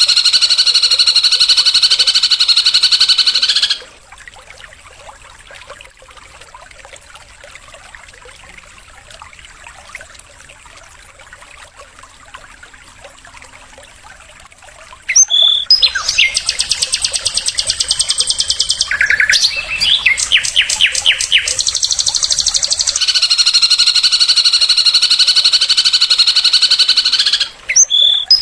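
Loud recorded songbird song: a fast buzzy trill that stops abruptly about four seconds in, a long quiet stretch, then rapid repeated notes and trills returning at about fifteen seconds, with another long trill near the end.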